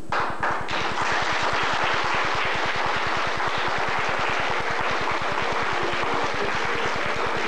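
Crowd applauding, breaking out suddenly and then holding steady. A few faint held musical notes come in during the second half.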